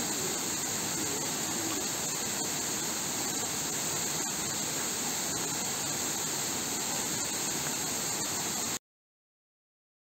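Waterfall rushing into its plunge pool: a steady, even hiss of falling water that cuts off abruptly near the end.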